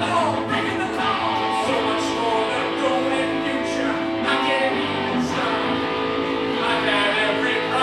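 A live band playing, with strummed guitar to the fore.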